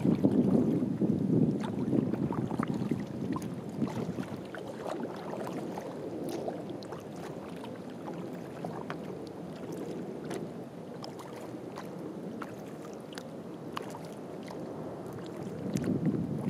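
Paddling sounds from a kayak gliding on calm water: water lapping and dripping around the bow, with small splashes and clicks scattered throughout. Wind rumbles on the bow-mounted microphone, heavier at the start and again near the end.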